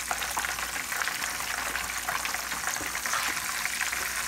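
Breaded chicken fried steaks sizzling and crackling steadily in hot frying oil in a skillet.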